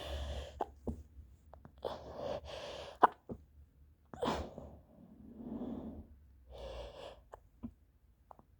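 A woman's sneezing fit: several sneezes into a handkerchief, with gasping breaths drawn in between them.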